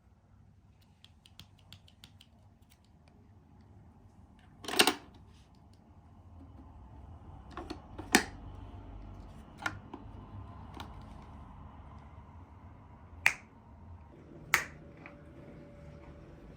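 Handling sounds: a series of sharp clicks and knocks, the loudest about five seconds in and three or four more spread through the rest. A low steady hum sets in about six seconds in.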